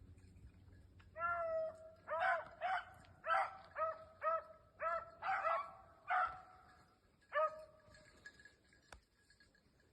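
Hunting beagle baying: a run of about ten short, clear-pitched barks, starting about a second in and stopping about two seconds before the end.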